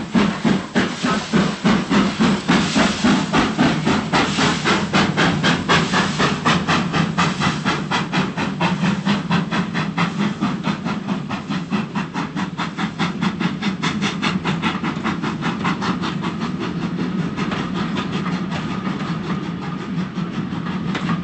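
Steam locomotive pulling away, its exhaust chuffing in sharp, hissing beats that quicken as it gathers speed, then merging into a steadier rolling sound of the moving train near the end.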